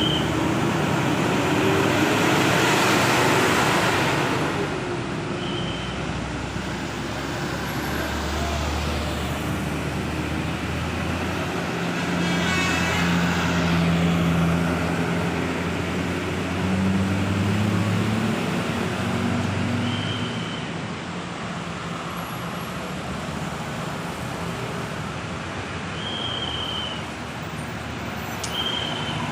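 Roadside traffic: vehicles passing steadily, with a heavy vehicle's engine hum most prominent through the middle. No musical horn melody is sounding.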